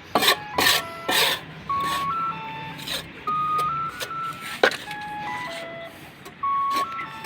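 A simple electronic melody of short beeping notes, with sharp knocks and clicks among them.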